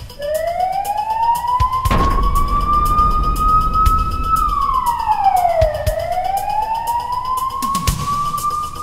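Emergency vehicle siren in a slow wail: the tone climbs over about four seconds, drops quickly, then climbs again. A short thud comes about two seconds in.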